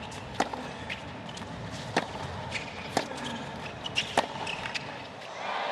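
Tennis ball being struck back and forth by rackets in a rally, sharp pocks roughly a second apart, with brief shoe squeaks on the court. Crowd noise swells near the end.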